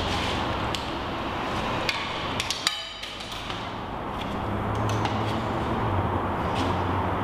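Steady background hiss with a low hum, broken by a handful of light clicks and taps, with a short ringing ping about two and a half seconds in.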